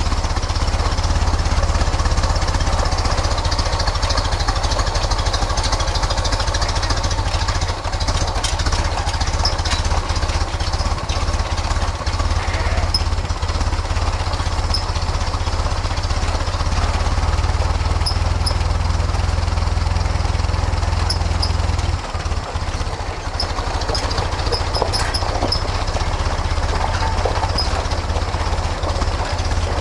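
1931 Ford Model A's four-cylinder flathead engine running as the open car is driven slowly, a steady low rumble with a short dip in loudness about two-thirds of the way through.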